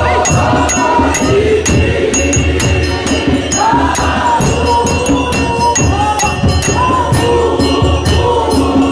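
A large group of women singing a hymn together in full voice, over a quick, steady beat of hand percussion, in the style of a Methodist women's manyano.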